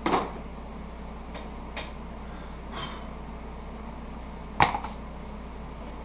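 Handling knocks on a wooden workbench: a sharp knock at the start, a couple of faint ticks, and a louder knock about four and a half seconds in as a leather holster paddle is picked up and set back down on the cutting mat. A steady low hum runs underneath.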